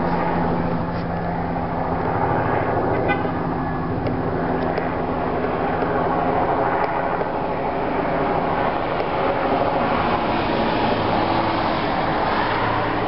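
Light two-bladed helicopter flying overhead: a steady drone of rotor and engine.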